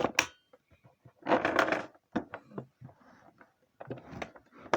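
Plastic parts of a vacuum cleaner being handled and fitted together: a string of irregular clicks and knocks with short rustling, scraping stretches about a second in and near the end.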